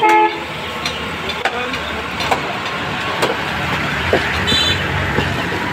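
Road traffic: vehicle engines running steadily in a low rumble, with occasional sharp clicks and a short high beep about four and a half seconds in.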